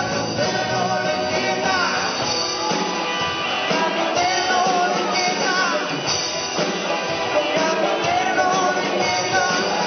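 Live rock band playing an original song: electric guitars over a drum kit, steady and full throughout.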